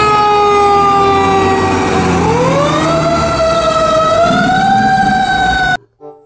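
Fire engine siren wailing: its pitch slides slowly down, then climbs again about two seconds in and holds high, over a low engine rumble. It cuts off suddenly near the end.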